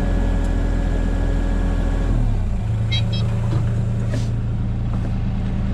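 Kubota KX040-4 mini excavator's diesel engine running steadily with its hydraulics. About two seconds in, the engine's hum shifts to a different, lower note.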